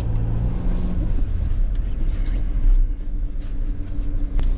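Steady low rumble of a running vehicle engine, with a constant hum.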